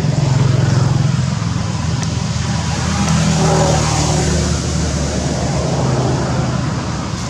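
A motor vehicle's engine running close by: a steady low rumble.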